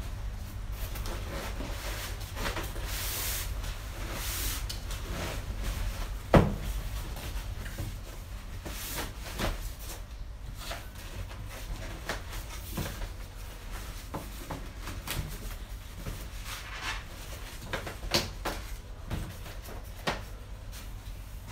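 Large cardboard soundbar box being handled and opened: cardboard flaps and packing rustling and scraping, with scattered knocks, the loudest about six seconds in. A steady low hum runs underneath.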